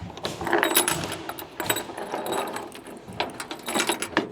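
Irregular metallic clicks and rattles of the mini excavator's sheet-metal service covers and latches being handled, with no engine running.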